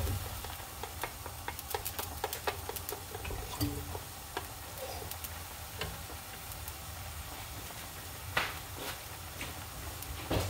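A wooden spoon stirring chicken soup in metal pots, clicking and tapping against the pot sides in quick light strokes, most of them in the first few seconds. A couple of louder knocks come near the end.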